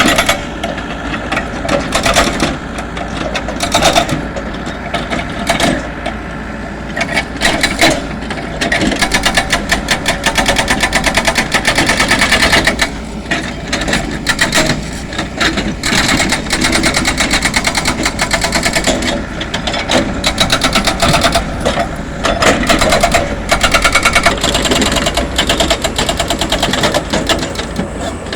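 Engine-driven road-works machine running with a fast, rattling clatter, its loudness swelling and easing every few seconds.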